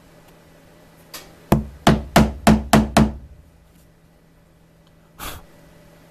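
A hammer striking a chisel set in the corner of a routed pocket in MDF: a light tap, then six sharp strikes in quick succession, about three a second. A brief, softer knock follows near the end.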